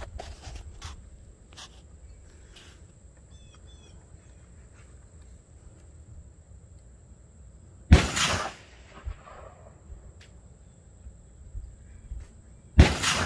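Two rifle shots about five seconds apart, each a sharp crack with a short echoing tail, fired at targets 100 yards downrange.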